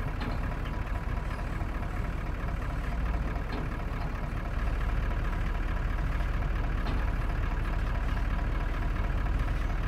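Vehicle engine idling with a steady low rumble that grows a little louder about halfway through.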